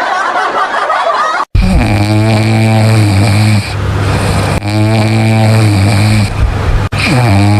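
A man snoring in his sleep: three long, deep snores of about two seconds each, the first starting after an abrupt cut about a second and a half in.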